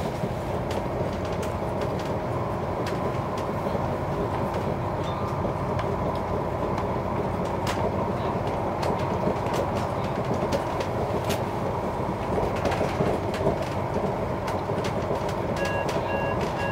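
Class 197 diesel multiple unit running at speed, heard from inside the carriage: a steady rumble and hum of wheels on rail, with scattered clicks over rail joints. A few short, evenly spaced beeps come in near the end.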